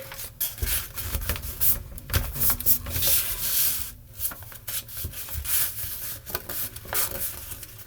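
A sheet of paper rustling and being rubbed flat as it is folded and creased into a paper airplane: irregular scratchy strokes with small crinkles, close to the microphone.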